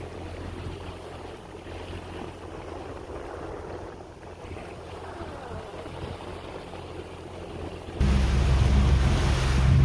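Small motorboat's engine running slowly, a low steady hum under faint water and air noise. About eight seconds in the sound jumps to a much louder engine drone with wind on the microphone.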